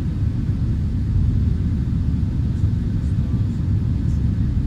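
Jet airliner in flight, heard from inside the passenger cabin: a steady low rumble of engines and airflow.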